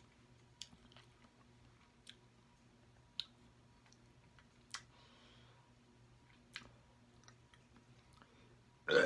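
Sparse, faint mouth clicks and lip smacks from chewing food, a few seconds apart, ending in a short burp.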